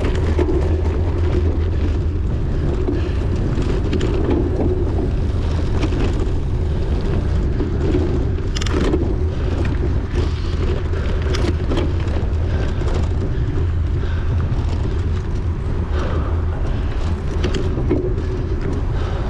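Running noise of a cyclocross bike being raced: tyres on the course and the chain and frame rattling, with sharp clicks now and then, under a steady low rumble of wind on the microphone.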